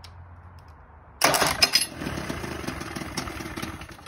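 Evinrude outboard's electric starter cranking the engine over, kicked in by bridging the solenoid terminals with a screwdriver. It starts suddenly about a second in, loudest at first, runs on a little lower and stops just before the end.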